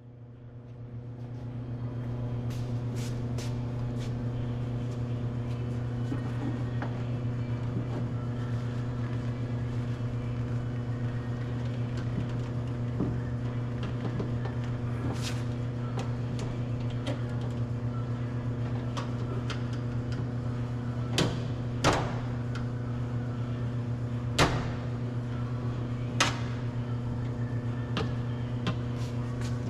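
A steady low hum with scattered light clicks and knocks of hard plastic: a Mazda CX-9 rear door handle and its retaining spring being worked loose from the door panel. A few sharper knocks come after about twenty seconds.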